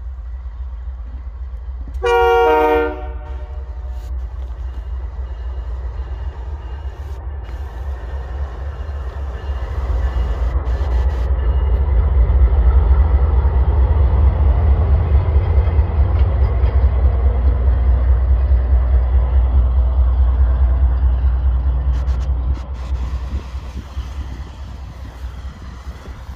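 Canadian Pacific diesel locomotive 8606 running light: one short horn blast about two seconds in, then the locomotive's engine rumble builds as it passes close by, loudest in the middle, and fades as it moves away near the end.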